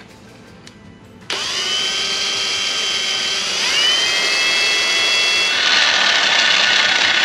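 Kobalt 24V brushless cordless drill starting about a second in and running steadily, drilling a hole into the car's steel exhaust pipe for an O2 sensor. Its whine shifts pitch briefly midway, and near the end the sound turns louder and harsher.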